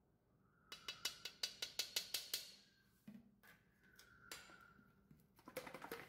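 Quick run of about ten light, sharp taps, roughly six a second, with a faint ring: a fine metal grater being tapped to knock lemon zest off. A few single taps follow, then a second short flurry near the end.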